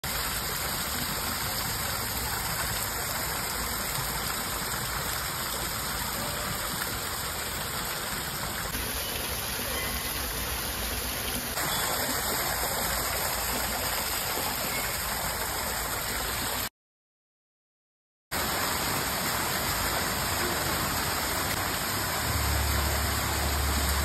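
Water cascading over a stacked-stone fountain wall into its basin: a steady rushing splash. It cuts out completely for about a second and a half partway through, and a low rumble joins it near the end.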